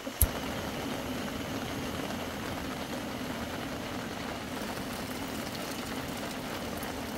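Portable butane camping stove burner lit with a sharp click, then running with a steady roar of gas.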